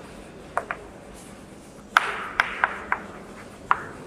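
Chalk writing on a chalkboard: about seven sharp taps of the chalk striking the board, most of them in the second half, with faint scratching strokes between them.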